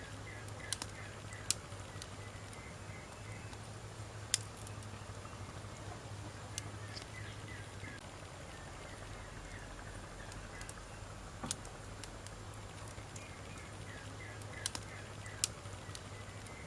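Wood fire crackling, with sharp pops every few seconds over a low steady hum. Groups of quick chirps sound in the background.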